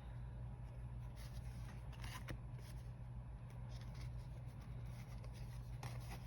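Tarot cards being handled and flipped through, a few faint brushing swishes of card on card, over a steady low hum.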